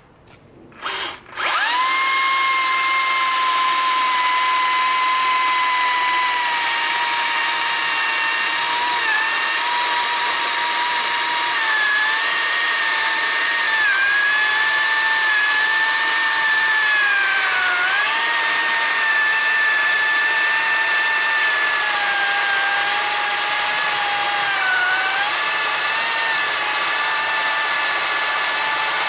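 Makita cordless electric chainsaw, a short blip of the trigger, then spinning up about a second and a half in and running on its higher-power setting while cutting through a birch log. A steady high motor-and-chain whine that sags slowly and dips in pitch several times as the chain bites into the wood.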